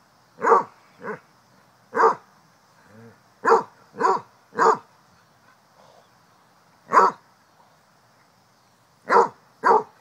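A dog barking in single short barks, about nine of them, irregularly spaced: a few in quick succession, then a longer pause before more near the end.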